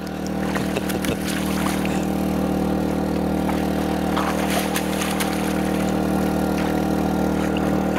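Engine on a bowfishing boat running steadily at one even pitch, with light splashing from the water.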